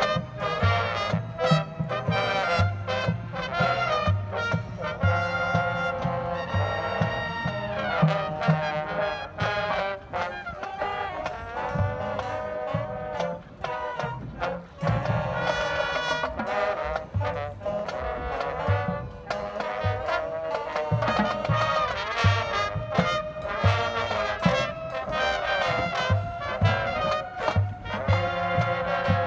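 High school band playing, with the brass section carrying the tune over a steady drum beat.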